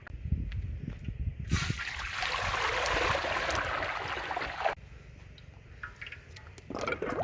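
Water running or pouring for about three seconds, starting sharply about a second and a half in and cutting off suddenly, after a few low knocks of handling. Clicks and clatter of utensils near the end.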